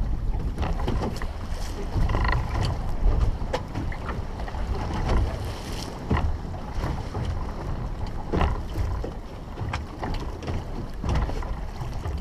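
Wind buffeting the microphone and water slapping against a small fishing boat's hull on a choppy sea, with scattered knocks.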